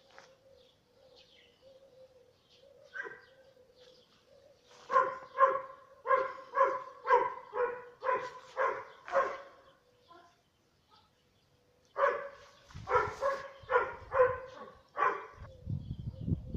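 A dog barking in two runs of quick, repeated barks, about two a second, the first starting about five seconds in and the second about twelve seconds in.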